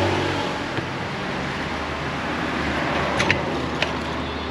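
Electric orange juicer's motor running with a steady hum while squeezing fresh oranges, with a few sharp clicks about three seconds in.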